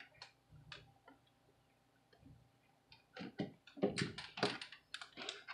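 Small screwdriver clicking against a screw in the laptop's plastic base as the screw is driven in. A couple of faint ticks come first, then a quick run of louder clicks, about three or four a second, over the last two seconds.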